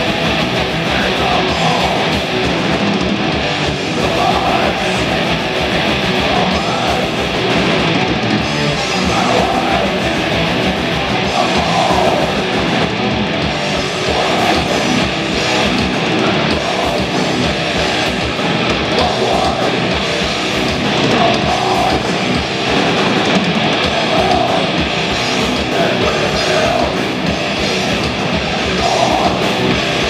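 Heavy metal band playing live and loud: distorted electric guitars, bass and fast, driving drums.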